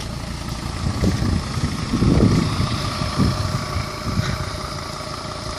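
Mercedes Sprinter 2.9 TD five-cylinder turbodiesel idling steadily while still cold, shortly after a cold start in frost, with an even whine over the engine note. Wind buffets the microphone in several low gusts.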